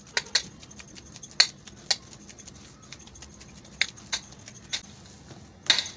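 Hands kneading a wet ground-chicken mixture in a stainless steel bowl: irregular sharp squelches and clicks, the loudest about one and a half seconds in.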